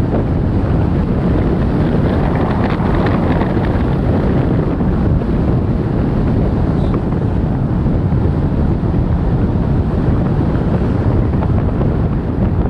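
Wind buffeting the microphone of a camera in a moving car, a loud, steady rumble mixed with the car's road noise.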